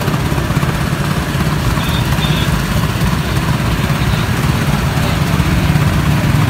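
A small engine running steadily with a low, even drone.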